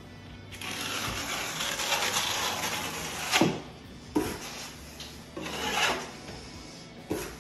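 Steel trowel scraping tile mortar across the floor in long strokes, with a few sharp knocks as the trowel is set down or tapped, over background music.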